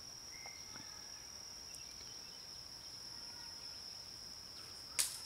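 Insects, crickets, trilling as one high steady tone over faint outdoor background noise, with a single sharp knock near the end.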